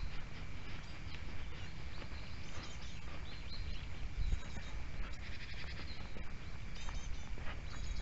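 Outdoor rural ambience: birds chirping on and off, loudest around the middle, over low uneven thumps and rustle from the camera being carried on foot, with a faint steady high drone underneath.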